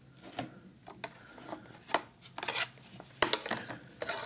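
Wooden ruler scraping and tapping against a tablet's glass screen and plastic edge as it is moved into place: a series of short scrapes and clicks, the loudest a little past three seconds in and again near the end.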